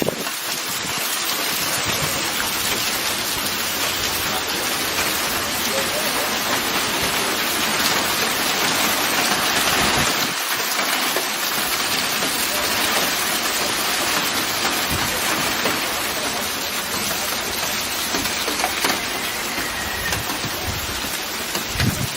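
Heavy thunderstorm rain pouring down steadily, an even hiss.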